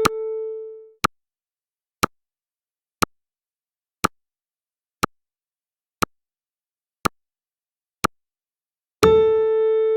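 Countdown timer sound effect: a sharp tick once a second, eight in a row, between two long electronic beeps. The first beep fades out about a second in, and the next starts near the end.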